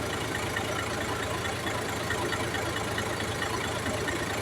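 Car engine idling steadily with no change in its running, even with the camshaft sensor unplugged, which was expected to stall it by losing timing.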